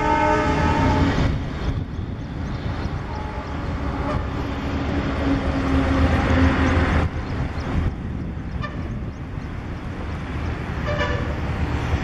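Multi-tone horn of a rebuilt ALCO WDM-3A diesel locomotive sounding a chord that ends about a second in, then the locomotive's ALCO 251 diesel engine running as it hauls the train away. Near the end there is a short, fainter toot of the horn.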